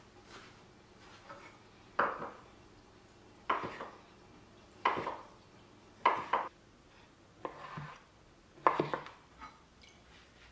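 Stainless-steel santoku knife cutting through salt-cured pork and striking a wooden cutting board: six separate knocks, about one every second and a half.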